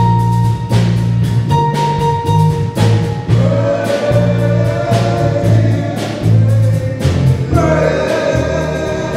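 Men's gospel vocal group singing over a steady drum beat and bass; the voices come in a few seconds in and grow louder near the end.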